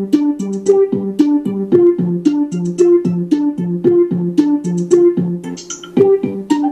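A Nokia 3585 ringtone played as MIDI on a Sound Blaster Live! sound card with the Mobile60 soundfont: a synthesized tune of short plucked notes, about four a second, over a repeating bass line. It dips briefly near the end.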